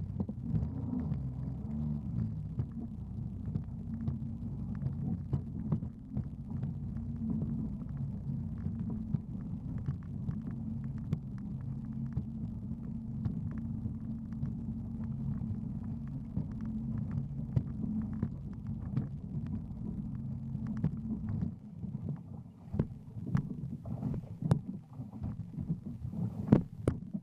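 Jet ski engine running steadily under way through choppy water, a low throbbing drone with scattered slaps and splashes of water on the hull. About 21 seconds in the drone drops away, and a few louder knocks and thumps follow near the end.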